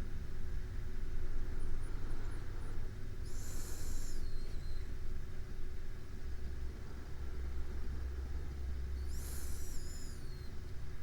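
A person breathing slowly in sleep: two breaths about six seconds apart, each with a thin high whistle that falls away at its end, over a steady low rumble.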